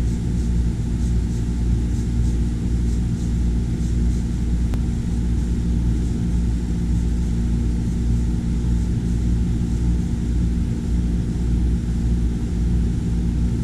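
CO2 laser engraving machine running through an engraving job on stainless steel, giving a steady low hum with no change in pitch or level.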